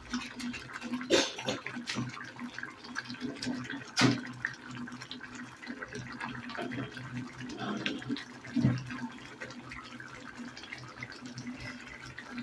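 Thick egg malai gravy simmering in a metal pan on the stove, bubbling with many small pops over a steady low hum. A few sharp knocks come through, the loudest about four seconds in.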